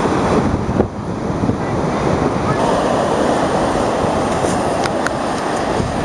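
Ocean surf breaking and washing up the beach in a steady rush, with wind rumbling over the microphone. A few light clicks come about two-thirds of the way through.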